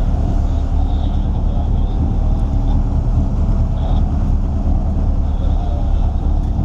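Steady low rumble of a fishing boat's engine running, with a faint high whine coming and going.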